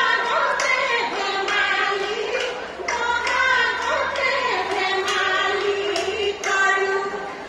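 A woman singing a melody with long, wavering held notes over musical accompaniment, with sharp percussion hits at uneven intervals.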